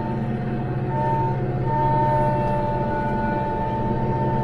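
Branson 5520CH tractor's diesel engine running steadily while driving a rear rotary cutter through tall grass: a low engine drone with a sustained high whine over it.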